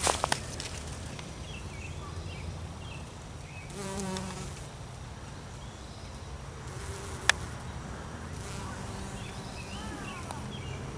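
Insects buzzing steadily, with faint short chirps above. There is a brief buzzy pulse about four seconds in, and sharp clicks at the start and about seven seconds in.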